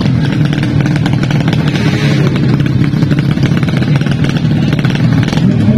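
A four-stroke underbone drag bike engine from the 200 cc class running steadily through a straight-through racing exhaust. The note is loud and holds at much the same pitch, without big revs.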